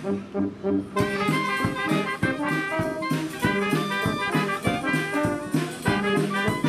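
Upbeat brass band music, trumpets and trombones playing over a steady beat.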